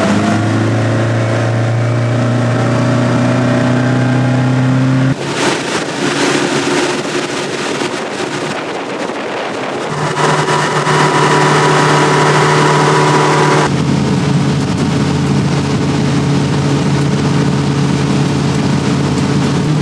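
Boat engine running steadily, with a humming pitch that jumps to a new level a few times, about five, ten and fourteen seconds in.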